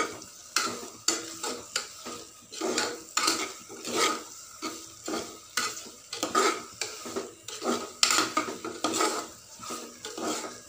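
Metal spoon stirring and scraping mutton pieces in thick masala inside a pressure cooker pot, in repeated irregular strokes about once or twice a second, with the meat sizzling as it fries in the masala.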